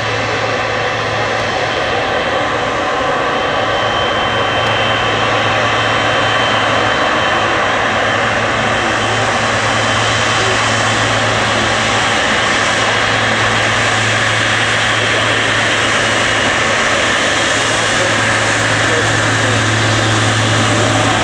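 A Boeing 777-300's twin jet engines running at taxi power as the airliner rolls past: a steady, loud jet noise with a faint high whine over it, growing slightly louder toward the end.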